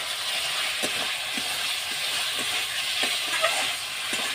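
Chicken curry with onion, masala and tomato sizzling in a metal kadhai as it is stirred, with a few light knocks and scrapes of a metal spatula against the pan.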